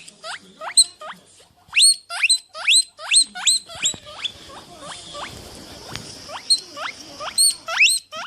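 A small animal squeaking over and over: short, high squeals that each sweep sharply upward in pitch, about three a second. In the middle the squeaks turn fainter over a patch of rustling, then come back louder near the end.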